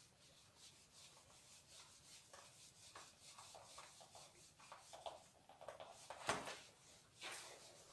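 Faint rubbing of a whiteboard being wiped clean by hand, in a series of short strokes, with a louder stroke about six seconds in.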